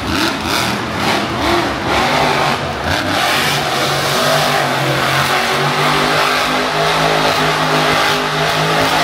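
Monster truck engine revving up and down several times, then held at steady high revs from about three and a half seconds in.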